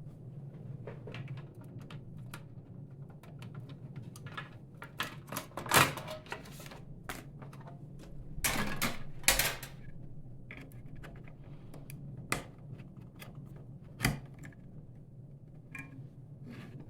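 Watercolour full pans being set one by one into a metal palette tray: irregular small clicks and taps, with a few louder knocks along the way.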